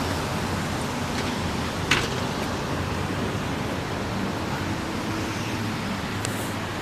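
Steady low hum and rumble of a car with its engine running, heard from inside, with a single sharp click about two seconds in.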